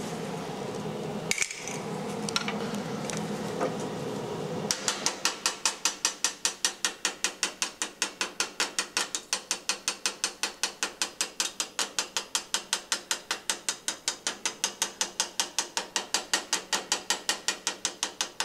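Chipping hammer rapidly knocking slag off a fresh 7018 stick-weld bead on steel angle, starting about five seconds in with even, sharp strikes at about five a second.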